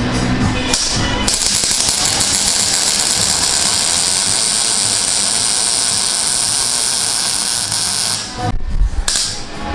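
Wire-feed (MIG) welding arc crackling and hissing as a weld is laid. There is a short burst at the start, a brief break, then one long steady run of about seven seconds that stops, and another short burst near the end.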